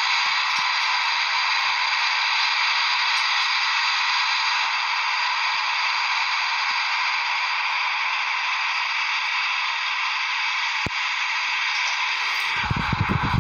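Steady hiss of radio static with faint steady tones running through it. There is a single click about eleven seconds in, and a low rumbling noise joins near the end.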